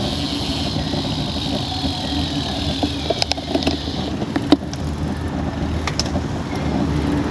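Steady road and wind rumble picked up by a bicycle-mounted action camera as the bike rolls slowly in a group ride. A higher hiss fades out about four seconds in, and a few short sharp clicks come in the second half.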